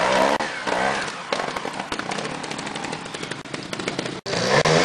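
Trials motorcycle engines revving in short bursts, with a rapid crackling, popping exhaust note, as the bikes climb a steep, muddy trail. The sound cuts out for an instant just after four seconds.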